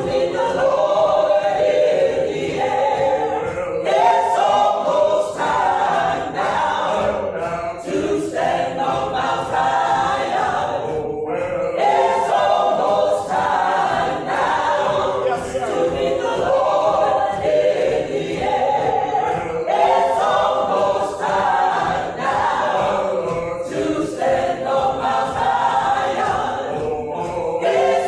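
Choir singing a gospel song a cappella, many voices in harmony in long held phrases.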